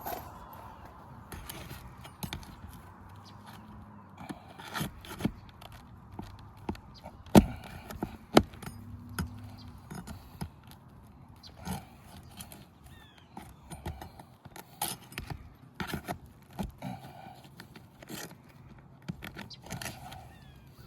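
Roofing tools scraping, clicking and knocking against asphalt shingles as the shingles are pried up to reach the old nails, with two sharp knocks a second apart about halfway through. The shingles are old and brittle, tearing and crumbling as they are lifted.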